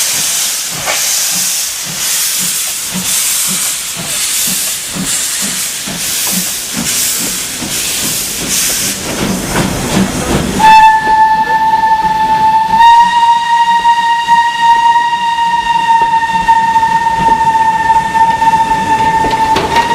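Steam locomotive working a train, its exhaust chuffing in a steady rhythmic beat of hissing blasts. About halfway through, the steam whistle sounds one long steady note for about nine seconds.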